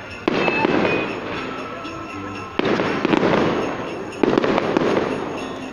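Aerial firework shells bursting overhead: three loud booms about two seconds apart, each dying away over a second or so.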